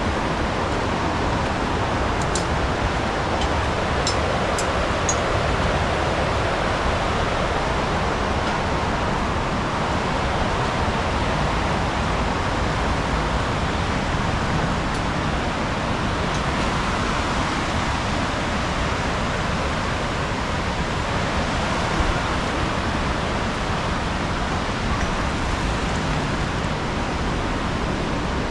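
Fast, turbulent mountain river rushing: a steady, even noise of water, with a few faint high ticks a few seconds in.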